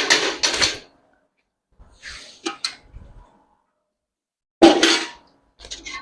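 Milk pail and litre measure being handled, clanking in four separate bursts, the loudest at the start and about two-thirds of the way through.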